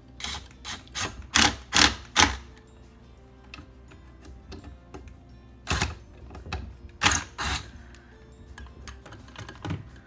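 A run of short, sharp clicks and clatters from tool work on the Thomas aerator pump's piston, several in quick succession in the first two seconds and a few more in the middle and near the end.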